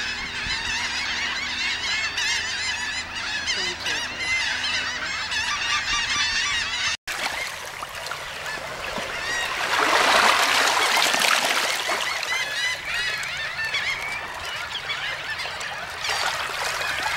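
A large flock of shorebirds calling, a dense chatter of many short overlapping calls. The sound cuts out for an instant about seven seconds in, and a few seconds later a rushing noise swells and fades over the calls.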